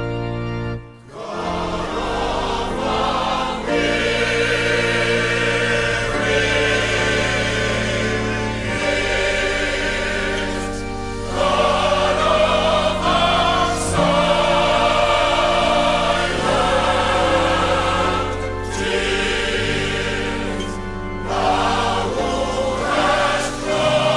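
Choir singing a gospel song, the voices growing louder about eleven seconds in.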